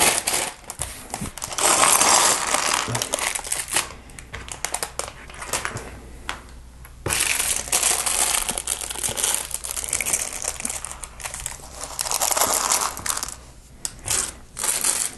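Thin clear plastic Lego parts bags crinkling loudly in several bursts as they are handled and opened, with sharp clicks of small plastic bricks among them.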